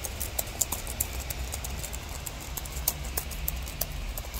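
Keys on a Dell Inspiron 7559 laptop keyboard clicking as they are pressed again and again at an irregular pace, over a steady low hum. The keyboard is faulty and does not register the presses.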